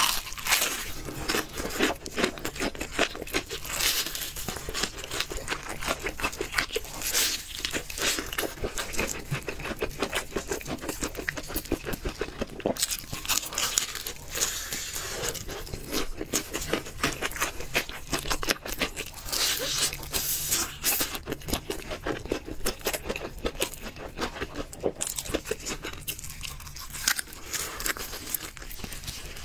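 Close-miked biting and chewing of crispy fried chicken: dense, irregular crunching of the battered coating and tearing of the meat.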